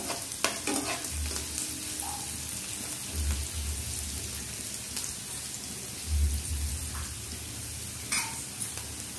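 Sliced onions and curry leaves sizzling steadily in hot oil in a frying pan, with a slotted metal spatula stirring through them now and then. Three dull low thumps come about 1, 3 and 6 seconds in.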